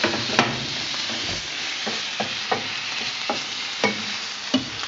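Haddock pieces and mushrooms sizzling in hot oil in a stainless steel frying pan as they are stirred into green curry paste. A spatula scrapes and knocks against the pan about seven times.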